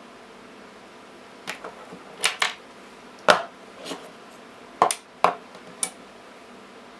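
Several sharp metallic clicks and clinks, some in quick pairs: 18650 lithium-ion cells being handled and snapped into the magnetic contacts of a DIY charger.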